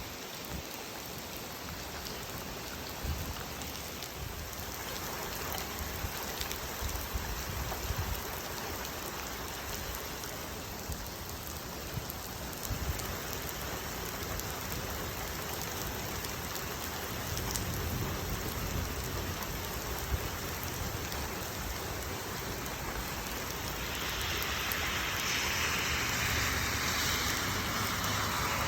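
Rain mixed with hail pouring down, a steady hiss with scattered small ticks. It grows louder near the end.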